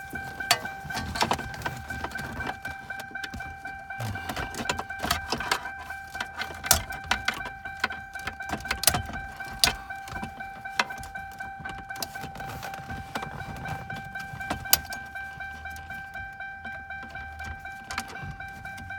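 Irregular sharp clicks, knocks and rattles of hands working the radio's wiring plugs and antenna lead behind a car dashboard, over a steady high-pitched tone.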